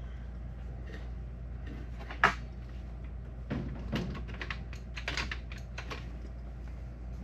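DeWalt DCN701 cordless cable stapler being fired empty, with no staples loaded: one sharp clack about two seconds in, then a run of lighter clicks and rattles as it is tried again without driving a staple. A steady low hum lies underneath.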